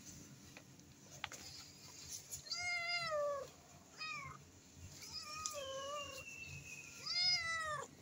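Tabby kitten meowing four times, each meow falling in pitch at the end; the last one is the loudest.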